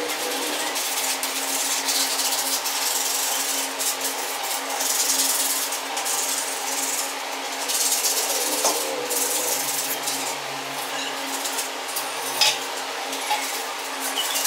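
Rusty steel frame parts of a 1997 Royal Enfield Bullet clinking and rattling as they are handled and worked loose by hand, with one sharper clink near the end.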